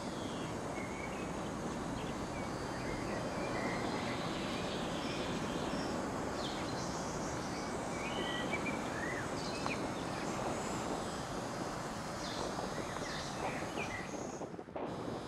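Outdoor hilltop ambience: a steady rush of wind with small birds chirping and singing repeatedly throughout, and a brief dip in the sound near the end.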